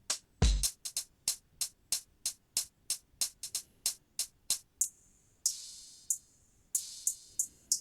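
Hip-hop drum loop samples being auditioned. A deep kick drum hit about half a second in, then a quick even run of closed hi-hats, about six a second, which gives way about five seconds in to longer, hissier hi-hat hits spaced further apart.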